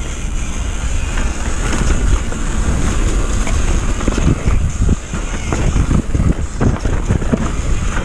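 Wind rushing over the camera microphone at downhill speed, with the rattle and repeated knocks of a mountain bike bouncing over a rough, wet dirt trail; the knocks come thickest in the second half.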